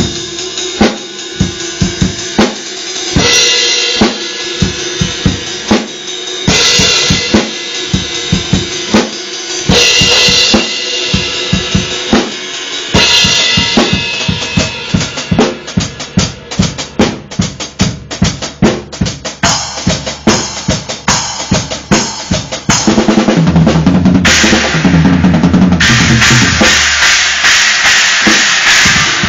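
Acoustic drum kit played hard, recorded on a phone: a steady beat of kick drum and snare with cymbal crashes, quickening into a dense run of hits partway through. Near the end the cymbals ring without a break and low held notes sound beneath them.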